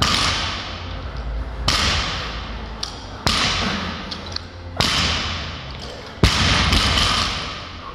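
Heavy workout thuds in a large gym hall, repeating about every second and a half. Each sharp impact echoes and dies away before the next.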